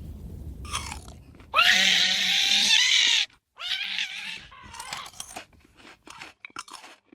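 An animal eating: a loud, harsh cry lasting about a second and a half, then scattered crunching and chewing sounds.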